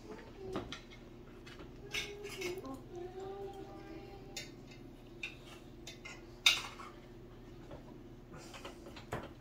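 Cutlery clinking and scraping against a plate as food is scooped up, a scatter of light clicks with one louder clink about six and a half seconds in.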